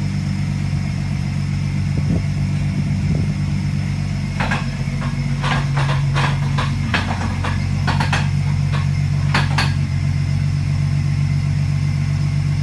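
Car engine idling steadily, with a cluster of sharp clicks and knocks about halfway through.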